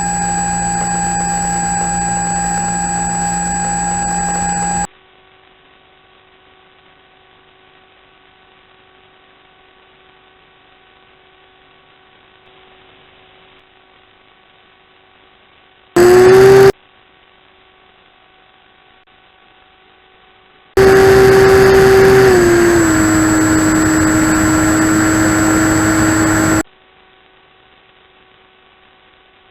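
Electric motor and propeller of an RC plane, heard through the onboard FPV audio, cutting in and out abruptly: a steady whine over hiss near the start, a short burst after about 16 seconds, and a longer stretch from about 21 to 27 seconds in which the pitch steps down twice as the throttle is eased. Between these a faint electrical hum is left.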